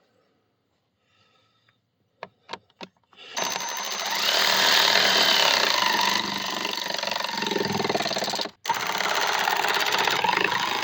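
A few light clicks, then a power driver runs loud and steadily, snugging the new blower motor's mounting bolts into its plastic housing. It stops for a moment about two-thirds of the way through and then runs again.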